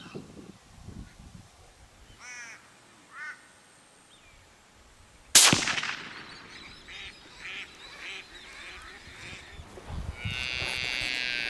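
A single gunshot about five seconds in, sharp with a ringing tail. Near the end comes a loud, nasal animal cry lasting about a second and a half, and there are faint chirping calls a few seconds before the shot.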